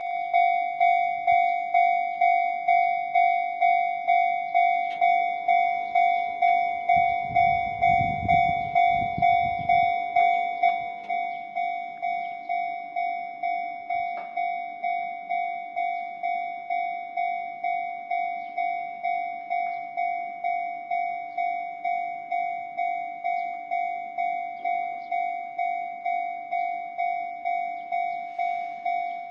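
Japanese level-crossing warning bell ringing, an electronic ding repeating a little under twice a second. About seven to ten seconds in, an Enoden electric train rumbles over the crossing. From about eleven seconds on the bell rings somewhat quieter.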